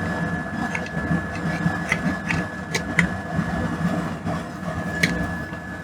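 A fume extractor fan running steadily with a thin constant whine, while a few sharp metal clinks come as a heavy soldering iron is worked into its holder.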